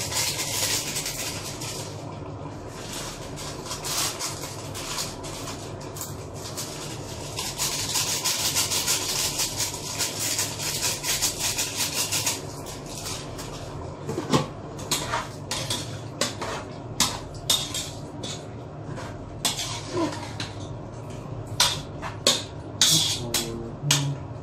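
A pot of meat sizzling with a dense fine crackle. From about halfway through, a metal utensil knocks and scrapes against the pot again and again as the meat is stirred.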